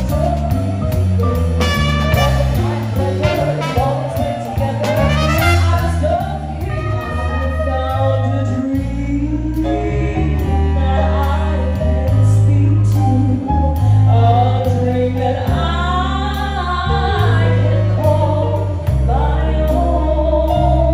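Live jazz band with a woman singing lead over trumpet, saxophone, electric bass and drums, the bass stepping from note to note beneath her held and gliding vocal lines.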